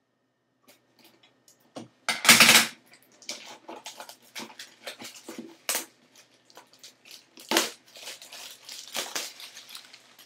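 Scissors cutting open the wrapping on a cardboard software box, then the wrapping being pulled off and the box handled. A run of irregular crackles and rustles starts about two seconds in, with the loudest crackle right at its start.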